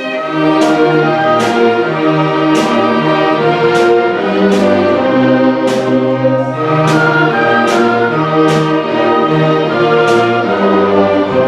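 Symphony orchestra playing: strings and brass holding sustained notes over a moving bass line, with a sharp, bright percussion stroke about once a second.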